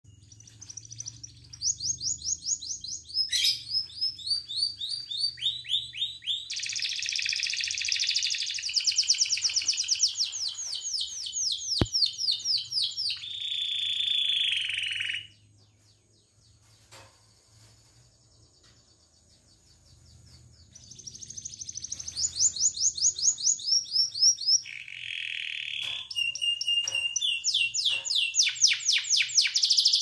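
Domestic canary singing a long song of rapid rolling trills, each phrase a fast run of repeated notes at a different pitch, with a pause of about five seconds in the middle before the song resumes.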